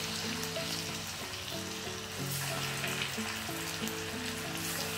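Banana flower vadas deep-frying in hot oil in an iron kadai: a steady sizzle with scattered crackles as the batter bubbles. Soft background music runs underneath.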